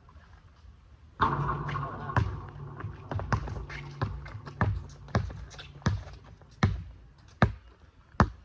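A basketball being dribbled on an outdoor hard court, bouncing about once every two-thirds of a second. Before it, about a second in, comes a sudden loud hit that rings on for about a second.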